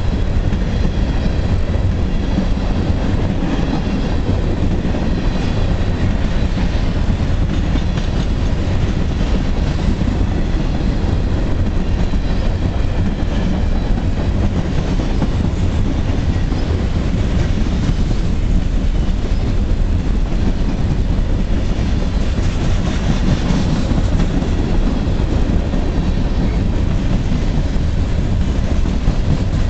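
Illinois Central freight train of covered hopper cars passing steadily: a continuous loud noise of steel wheels running on the rails, heaviest in the low end.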